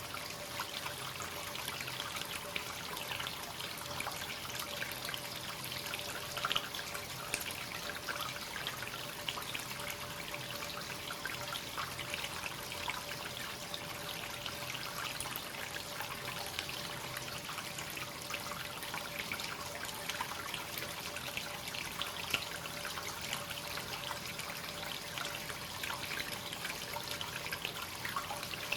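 Hot-spring water flowing continuously into a bath, a steady trickle and splash as the free-flowing spring spills into the tub.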